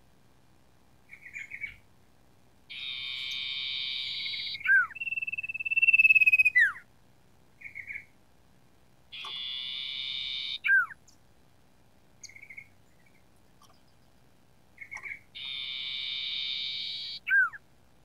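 Common iora calling: a harsh, buzzy rasp of one and a half to two seconds ending in a sharp downward-slurred note, given three times, with short chirps between. A long, clear whistled note, the loudest sound here, follows the first rasp.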